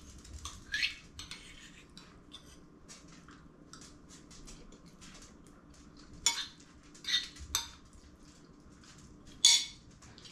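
Fork clinking and scraping on a ceramic plate while a taste of spaghetti is eaten: scattered sharp clinks with fainter taps between, the loudest a little before the end.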